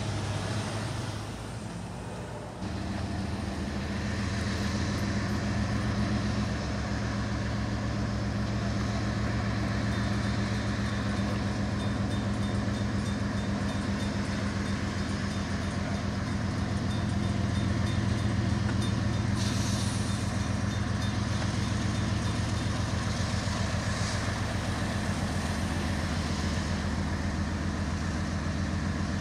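Diesel engines of two CSX GE road locomotives running steadily as they lead a train of tank cars past, a low, even engine drone.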